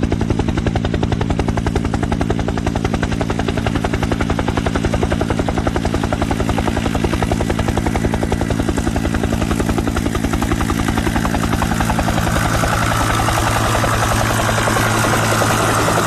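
A loud, steady drone that pulses rapidly and evenly, over a low hum. A higher, slightly rising tone joins it about twelve seconds in.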